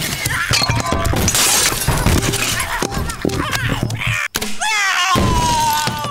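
Cartoon sound effects of a cat rummaging in the dark: a long run of clattering and crashing, things knocked over and breaking. Near the end comes a drawn-out cat yowl that glides down and holds.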